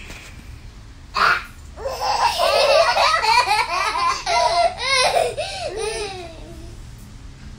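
A baby laughing hard in a long run of repeated bursts, with a young girl laughing along, fading out near the end. About a second in there is a brief loud burst of noise.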